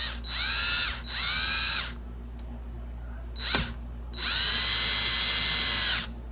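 Cordless power drill driving the door latch's screws: two short bursts of motor whine, a brief blip, then a longer run of nearly two seconds, the pitch rising as each starts and falling as it stops.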